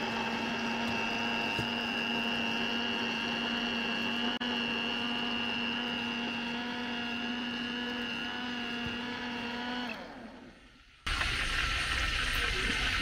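Philips countertop blender running steadily with a constant motor whine while blending a full jug of tomato purée, then switched off about ten seconds in and winding down to a stop. About a second later a steady, even hiss starts abruptly.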